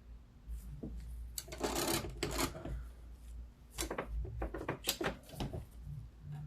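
Small tools clicking and scraping against a PS5 motherboard as old solder is cleared from the HDMI port's through-holes. There is a short rasp about one and a half seconds in, then a run of sharp clicks around four to five seconds in.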